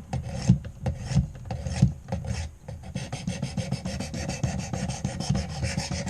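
Sharpening stone on a guided-rod knife sharpener scraping back and forth along a clamped knife blade. The strokes are uneven at first, then settle into quick, even strokes about halfway through.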